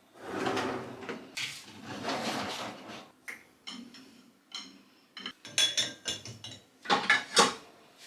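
Crockery and cutlery clattering and clinking as they are stacked into a dishwasher's racks, with scraping early on and the sharpest ringing clinks near the end.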